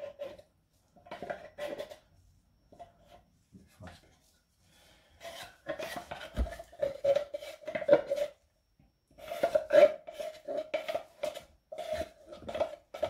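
Wooden spoon scraping refried beans out of a metal tin can, a few short scrapes at first, then two longer spells of quick repeated scraping and knocking against the can in the second half.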